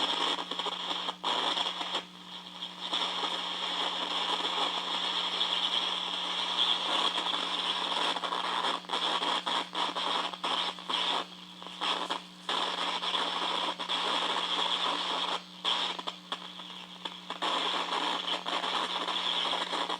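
Static from a cheap battery-powered radio touching an aluminum screen: a dense crackling hiss over a steady low hum, dropping out briefly several times.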